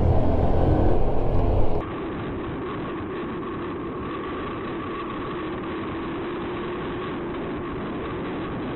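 Riding noise from a Honda Wave Alpha motorcycle on the highway: wind rushing over the mic with the engine running underneath. About two seconds in, the sound drops suddenly to a quieter, muffled steady drone with a faint hum.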